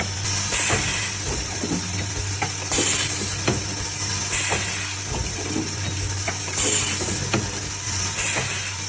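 Automatic stud-welding machine welding studs onto a tube: a steady hum with a short hissing burst every second or two as each stud is welded, and light mechanical clicks between the welds.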